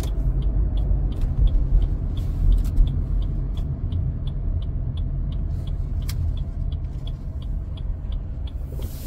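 Car cabin sound while driving: a steady low road and engine rumble, with a light regular ticking about three times a second.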